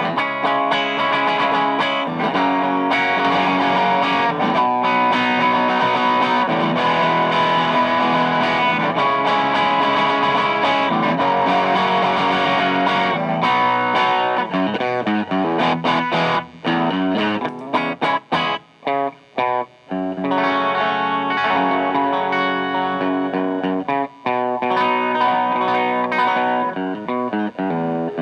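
Electric guitar played through a DOD Juice Box FX51 overdrive pedal, stacked for part of the passage with a DOD Bifet Boost 410. It plays sustained overdriven chords, breaks into short choppy stabs with gaps about halfway through, then returns to ringing chords.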